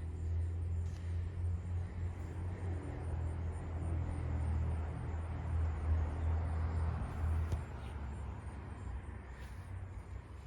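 Low rumble of a motor vehicle going by, swelling and then fading about three-quarters of the way through.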